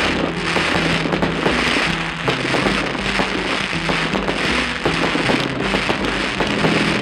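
Aerial fireworks going off: a dense crackle of many small pops that swells about once a second. Background music with held notes plays underneath.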